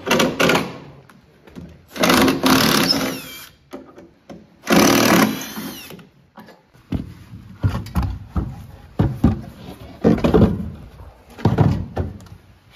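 Cordless drill-driver running in three short bursts, its motor whine rising and falling as it works screws on the bandsaw's lower housing. From about halfway in come a string of irregular knocks and rattles.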